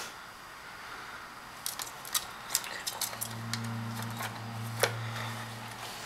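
Scattered sharp clicks and taps on the plastic bowl of a kitchen scale as a ground squirrel shifts in it and is held down by hand. A low steady hum runs under the second half.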